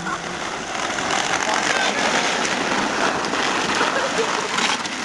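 A continuous crunching, scraping noise on snow as the makeshift sleds slide off down the snowy street and the camera is carried along after them.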